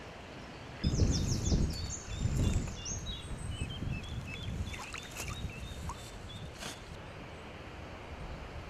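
Water sloshing and splashing as a common carp is slid back into the lake from a landing net, twice in the first few seconds. A small bird sings a run of short high chirps over it.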